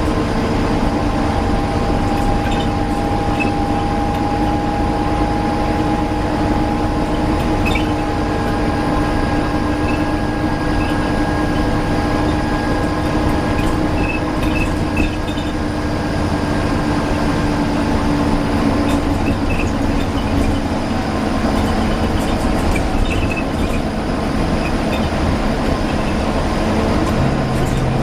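Volvo B9TL double-decker bus on the move, its running noise carrying a loud steady whine that sags slightly in pitch and fades out about two-thirds of the way through. Near the end a low steady hum comes in.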